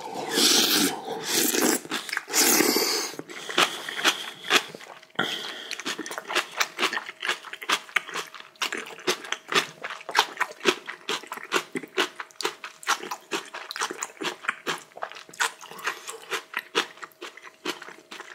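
A person eating: two loud slurps of hot sea mustard soup in the first three seconds, then steady crunchy chewing, about three to four chews a second, of rice and kimchi.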